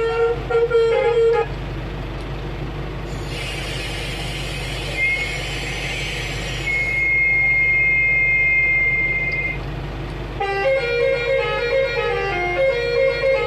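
Basuri musical horn module playing a tooting melody through a 300 W speaker. The melody breaks off about a second and a half in, giving way to a hiss with a steady high whistle, and starts again about ten seconds in.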